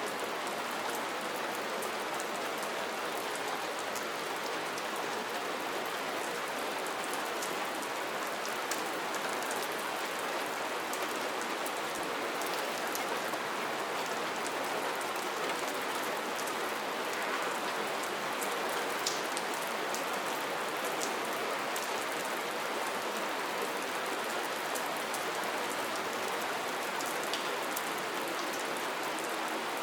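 Steady rain falling, an even hiss with scattered individual drops ticking in the high end.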